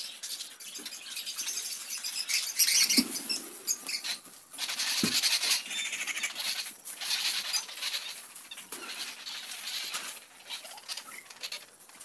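Paper blending stump rubbing across drawing paper in short, irregular strokes, a dry scratchy hiss, with two soft knocks about three and five seconds in.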